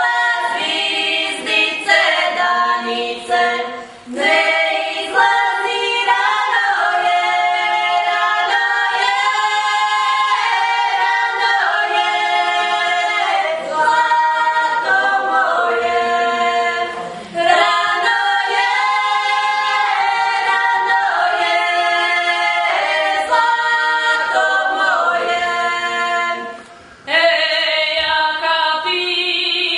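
A small group of women's voices singing a Croatian folk song a cappella in parts, the phrases broken by two short breaths, about four seconds in and near the end.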